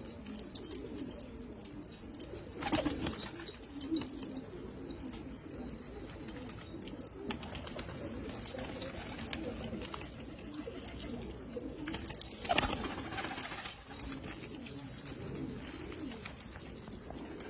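Domestic pigeons cooing: low, repeated coos running on throughout. Two brief, louder rustling noises come about three seconds in and again near the middle.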